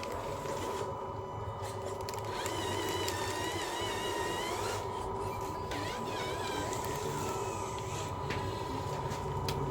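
Small electric motors of a radio-controlled dump truck running, with a whine that wavers up and down in pitch over a steady hum.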